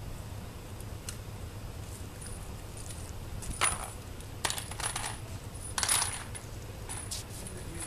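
Brass cartridges clinking and handguns being loaded: a handful of short, sharp metallic clinks and jingles in the middle stretch, some with a faint high ring.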